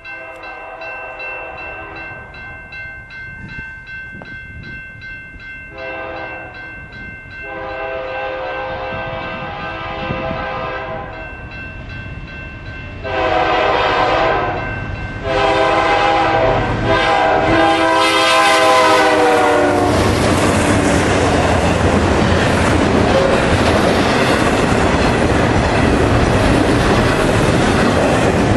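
Horn of a BNSF GE C44-9W freight locomotive sounding several blasts, a chord of several tones each louder than the last as the train comes near. About two-thirds of the way in the horn stops and the locomotives and double-stack container cars pass close by with a loud, steady rumble and wheel clatter.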